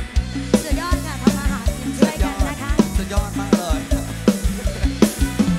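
Live lam sing band music: a drum kit keeps a fast steady beat over a deep bass line, with a bending lead melody on top.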